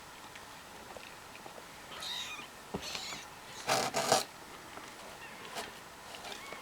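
Kittens mewing: a few short, high calls about two and three seconds in, and a louder one about four seconds in.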